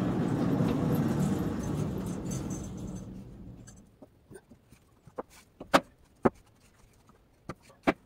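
Portable band sawmill running steadily, then winding down and falling quiet about three seconds in. Several sharp wooden knocks follow as sawn boards are lifted off the log and set down; the loudest comes near the middle.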